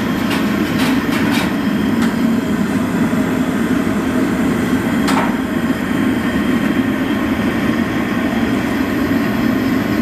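LPG-fed gas bhatti burner running under a large kadhai of milk, a loud, steady low rush of flame. A few short clicks of the metal stirrer against the pan are heard in the first two seconds, and a sharper one about five seconds in.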